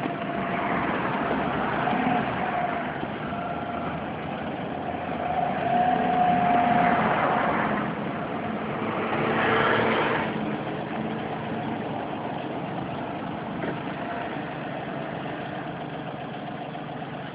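A car engine running and rising twice as the car pulls away with the steering turned, while a thin whine comes and goes in the first half. It is a test to bring out a strange noise that occurs when starting off with the wheel turned.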